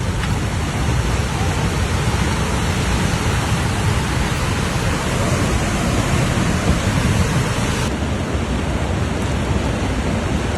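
Steady rushing roar of a landslide in motion.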